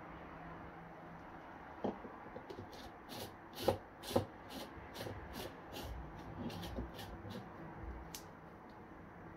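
Plastic blade base of a personal blender being screwed onto its cup: a quick run of light plastic clicks, with two louder knocks a little under halfway through.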